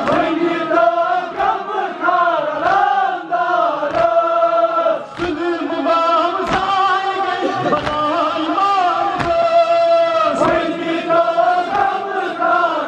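A Kashmiri noha, a Muharram lament, chanted by male voice in long, bending held lines. A heavy rhythmic thump of chest-beating (matam) falls about once every second and a bit under it.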